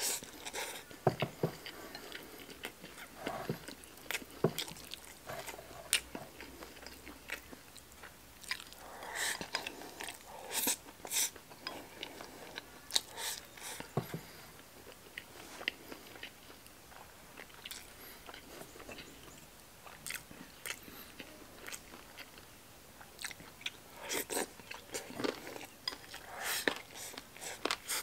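Close-up eating sounds: a man chewing and biting a mouthful of rice and stir-fried black bolete mushroom, with irregular soft clicks and smacks.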